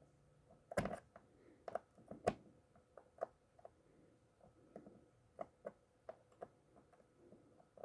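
Small metal clicks and taps of hand tools working on an eyeglass frame during a hinge-screw replacement. The ticks are irregular, with the loudest about a second in and just after two seconds, followed by lighter scattered ticks.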